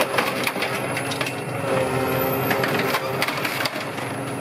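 A Scania OmniLink bus body being crushed and torn apart by scrapyard machinery: irregular cracks and crunches over the steady hum of the machine's engine.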